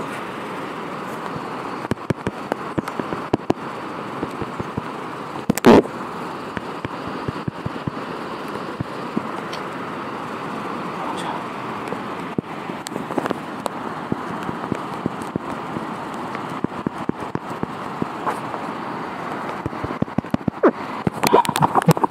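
Steady rush of a swollen, muddy river in flood. Scattered clicks and knocks run over it, with one loud knock about six seconds in and the clicks crowding together near the end.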